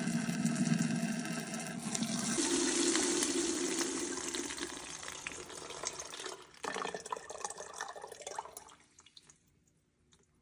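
Water draining from a sprinkler system's supply line through a brass drain valve and pouring into a plastic jug. Its pitch steps up a couple of seconds in as the jug fills. The flow weakens, surges briefly again, then tapers off to drips and fades out near the end.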